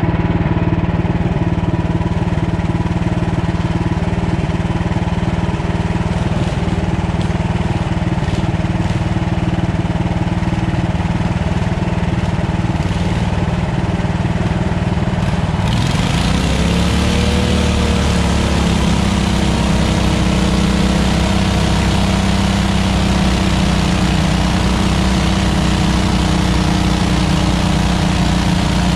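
Off-road riding lawn tractor's engine running steadily. About halfway through, the sound changes abruptly, the pitch rises and falls briefly, and then it runs louder and deeper as the tractor ploughs through a mud hole.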